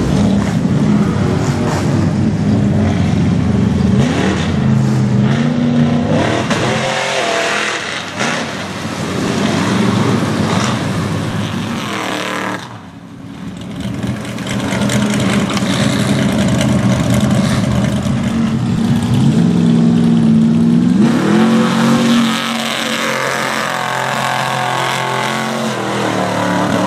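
Mud truck's engine run at high revs and revved up again and again as its big tyres churn and spin in deep mud, the truck bogging down. The level drops briefly about halfway through.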